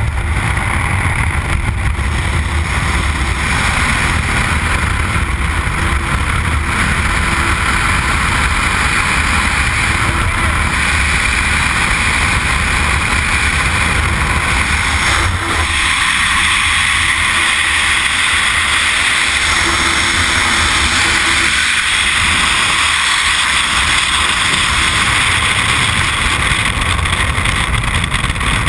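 Loud, steady wind rush on a helmet-mounted camera's microphone, with the jump plane's engine, from the open aircraft door. About halfway through, the skydivers exit the plane and it becomes the steady rush of freefall wind.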